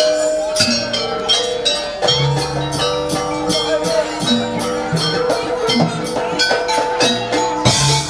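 Live jaranan gamelan accompaniment: drums strike a quick steady beat, about four a second, over ringing gong and metal-chime tones that repeat in a cycle.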